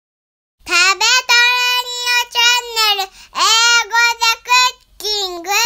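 A high voice sings a short jingle in several phrases of held and gliding notes. It starts about half a second in.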